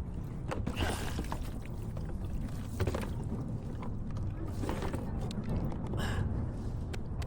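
Fishing gear being handled and stowed on a kayak: scattered clicks, knocks and brief rustles over a steady low rumble.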